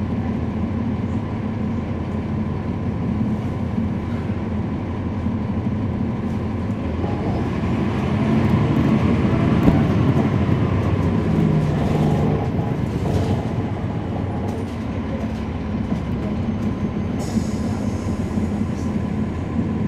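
Cummins ISL9 diesel engine of a 2012 NABI 40-SFW transit bus, heard from on board, running steadily under a constant din. It grows louder for a few seconds in the middle and then eases back.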